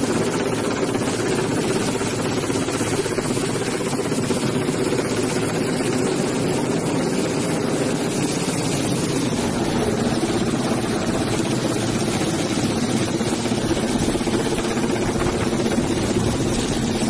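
Large helicopter hovering overhead and lifting a sling load, with steady rotor and engine noise that holds without break.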